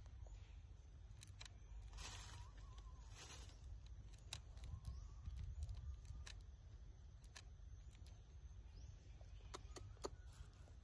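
Near silence: faint outdoor ambience with a low rumble, scattered faint clicks and two soft rustles about two and three seconds in.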